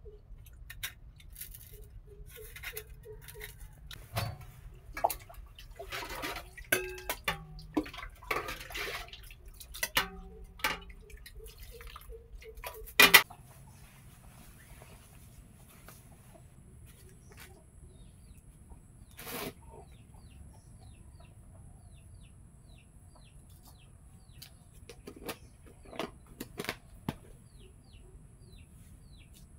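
Chickens clucking in short pulsing calls, over scattered clicks and taps of hands and steel bowls during a meal eaten by hand. A loud sharp clack about 13 seconds in, then quieter, with a few soft taps near the end.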